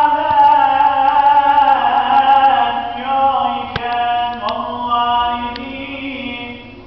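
A man's solo unaccompanied Islamic chant, sung in long held notes with wavering, ornamented pitch, fading in the last couple of seconds.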